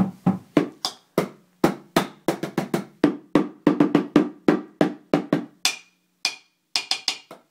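Homemade drum set of upturned plastic buckets and containers being drummed: a run of quick, uneven hits, several a second, with a few brighter, ringing hits near the end.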